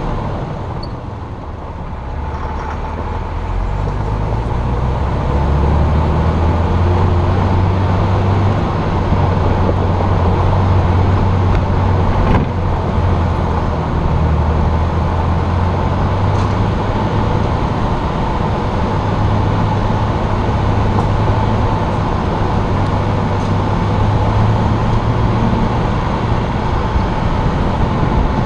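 A Jeep driving, heard from its hood: a steady drone of engine and road noise, with deep engine tones that shift in pitch as the throttle changes. It dips briefly about a second or two in, then builds back up and holds steady.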